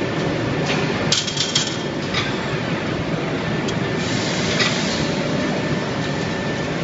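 Steady din of forging-line machinery, with a quick cluster of sharp metallic clanks about a second in and a few single clinks later.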